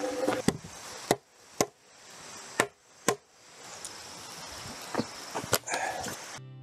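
A heavy peeled log being dragged and lifted onto wooden sawhorses: a series of about seven sharp wooden knocks at uneven intervals. Music comes in just before the end.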